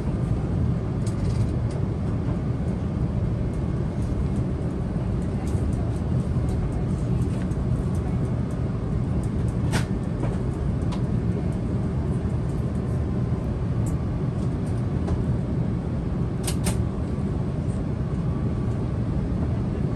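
Steady low rumble of airliner cabin noise inside an Airbus A350 in descent: engine and airflow noise at an even level, with a couple of faint clicks.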